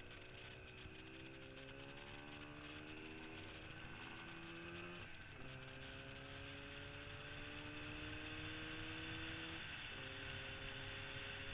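Yamaha RD400 two-stroke twin accelerating under load. Its engine note climbs steadily and drops sharply at upshifts about five and ten seconds in, over a steady rush of wind.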